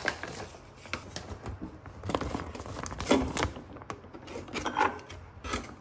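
Plastic frozen-food bags crinkling as they are handled and set down on a stone countertop, in several short irregular bursts.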